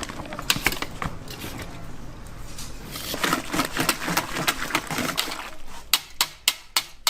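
Irregular clatter of sharp knocks and clicks, ending in a quick run of about five loud knocks.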